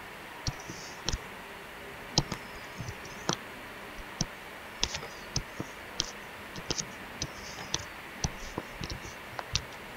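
Plastic stylus tapping and scraping on a tablet screen during drawing: light, irregular clicks a few times a second, some with short scratchy strokes.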